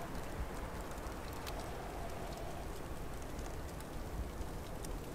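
Outdoor snowfall ambience: a steady soft hiss with many faint, scattered ticks of snow landing, over a low rumble. A faint steady hum fades out about two and a half seconds in.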